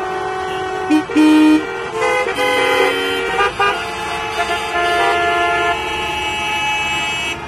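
Many car horns honking at once, overlapping steady blasts at different pitches with no break between them, and one louder, lower blast about a second in.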